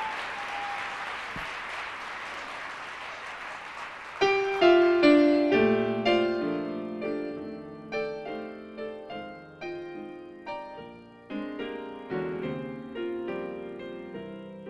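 Audience applause dying away, then a solo piano starts an introduction about four seconds in, with separate notes and chords, each struck and left to ring.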